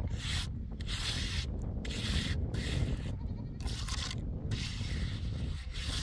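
Sheep bleating over a steady low rumble, with scratchy rubbing noises that come and go about once or twice a second.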